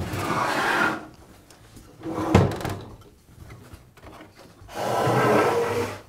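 Makita table saw being turned over onto its top on a wooden workbench: a scraping slide of its body on the bench, a sharp knock about two seconds in, then a second, longer scrape near the end.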